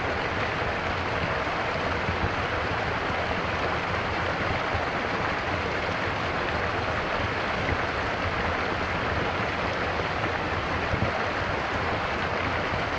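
Stream water flowing and burbling in a steady, unbroken rush.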